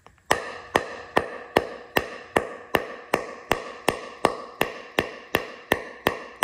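Steady hammer blows on metal, about two and a half a second, each with a short metallic ring: hammering to drive a stubborn press-fit pin out of a Hilti WSR 1250-PE reciprocating saw.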